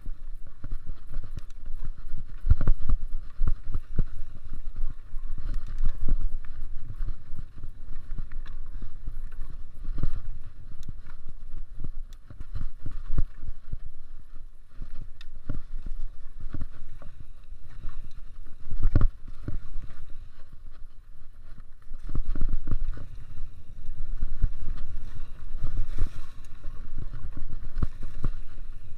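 Mountain bike being ridden over a rough cross-country trail: a constant low rumble of wind on the microphone, with irregular knocks and rattles from the bike hitting bumps.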